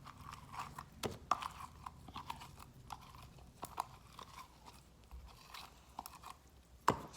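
Crunchy slime with fake snow mixed in being squished and kneaded by hand, giving irregular soft crackles and small pops, with a sharper pop near the end.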